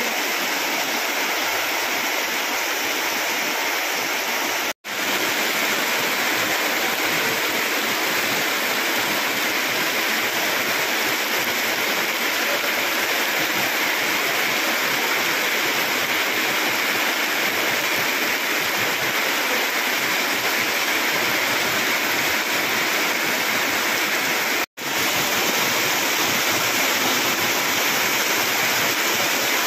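Heavy rain with rushing water, a steady loud hiss, broken twice by an instant of silence, about five seconds in and about five seconds before the end.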